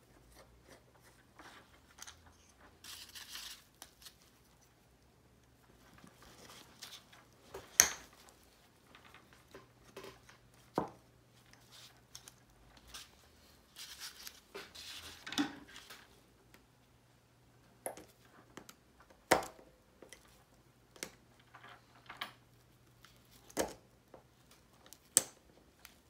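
Small parts of a plastic ATV shift-lever housing handled by hand on a foam packing sheet: scattered sharp clicks and taps of screws, washers and plastic, with a few stretches of soft rustling and crinkling.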